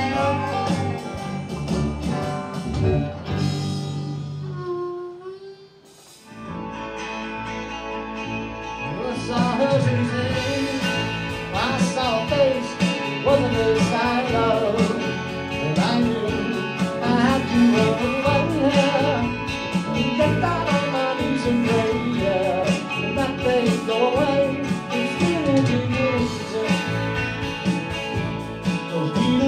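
Live band music. A harmonica-and-guitar number dies away about five seconds in, then a new song starts on guitars, and from about nine seconds in a man sings over it.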